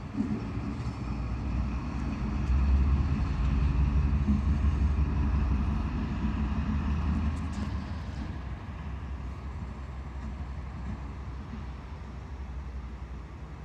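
Freightliner Class 70 diesel locomotive running light, its engine a deep, steady note with a faint whine above it. It is loudest a few seconds in, then fades as the locomotive moves away.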